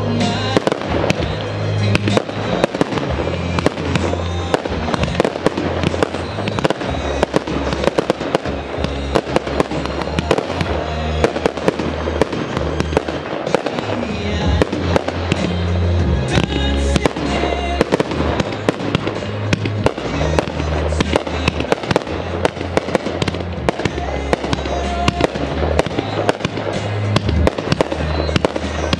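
Aerial firework shells bursting in dense, rapid succession, sharp reports one after another, over music with a heavy bass line.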